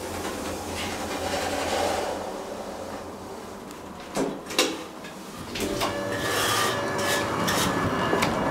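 Elevator inner car doors sliding with a rubbing scrape. About four seconds in come two sharp clicks from the door-open button, then a steadier, louder run with a faint whine as the door operator moves the doors again.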